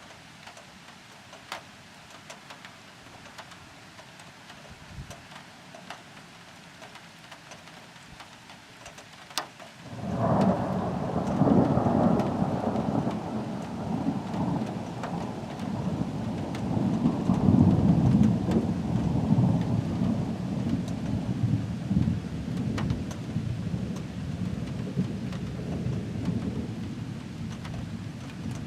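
Faint rain with a few drop ticks, then about ten seconds in a sudden thunderclap that rolls on as a long low rumble, swells again, and slowly dies away.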